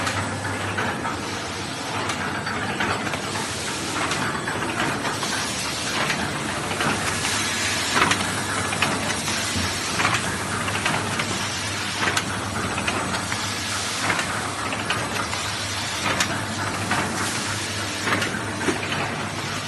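Paper takeaway-box carton erecting machine running: a continuous mechanical clatter with frequent sharp clacks and knocks over a steady low hum.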